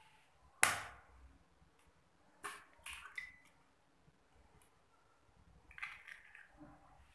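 An egg struck sharply once against the rim of a glass blender jug, with a brief ringing tap, followed by several lighter clicks and a short glassy ping as the shell is handled over the jug.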